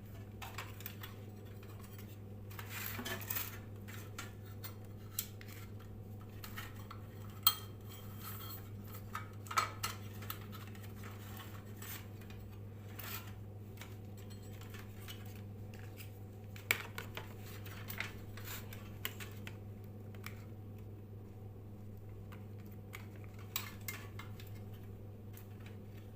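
Scattered light metallic clicks and clinks of small metal parts or tools being handled, over a steady low electrical hum.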